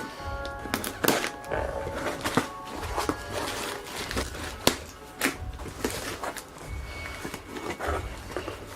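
Utility knife slicing through packing tape and cardboard as a shipping box is cut open and handled, a run of scrapes, clicks and knocks, over background music.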